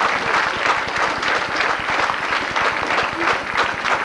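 Audience applauding, a dense patter of many hands clapping at a steady level.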